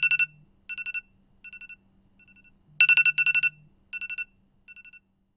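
Electronic alarm ringtone: a fast trill of high beeps sounds twice, each followed by fainter repeats that die away, the alarm going off to wake someone.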